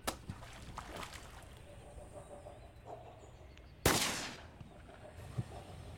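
Shotgun fire at incoming ducks: a fainter crack right at the start, then a loud shot about four seconds in whose report dies away over about half a second.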